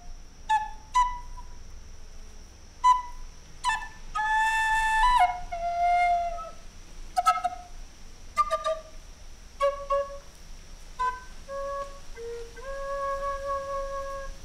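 Native American flute playing a slow, free-flowing melody: short, separate notes at first, a breathy held note about four seconds in, then longer held notes, the last held for nearly two seconds near the end.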